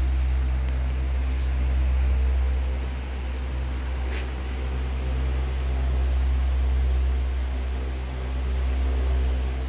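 Steady low machine hum, with one brief sharp click about four seconds in.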